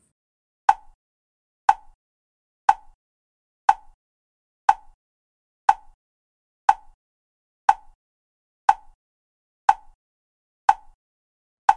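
Steady ticking: a single sharp, woody click exactly once a second, about a dozen in all, each with a brief ring and silence between.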